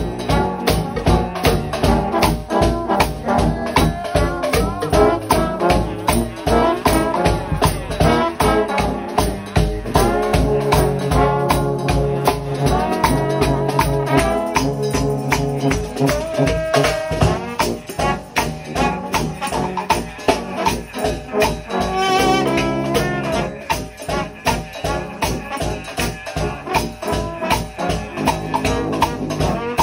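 A trombone shout band playing gospel music: a section of trombones holding and moving between loud chords over a fast, steady beat on bass drum, snare and cymbals.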